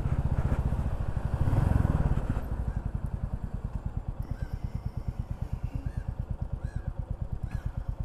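Motorcycle engine heard through a microphone inside the rider's helmet. It runs louder for about the first two seconds, then drops to a quieter, evenly pulsing beat.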